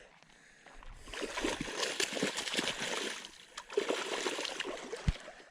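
Hooked catfish splashing and thrashing at the water's surface as it is reeled in, in irregular bursts, with a single dull knock near the end.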